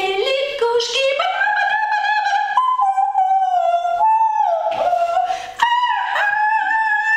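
A woman singing a wordless run of high, held notes that climbs in pitch over the first second, with short breaks for breath about five seconds in.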